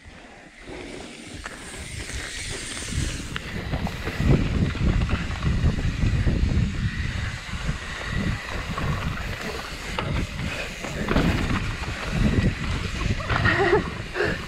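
Mountain bike riding down a dirt trail: wind rushing over the microphone with tyres rolling and rattling on the ground, building up over the first few seconds as speed picks up and then staying loud and uneven.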